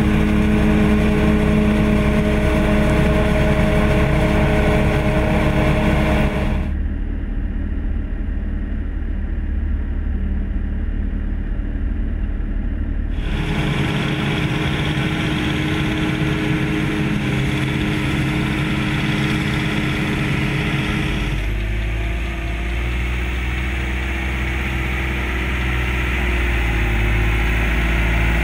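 Massey Ferguson 6615 Dyna-6 tractor's four-cylinder diesel engine running steadily under load while pulling a silage trailer. The sound shifts abruptly three times, sounding muffled and dull for a stretch in the middle.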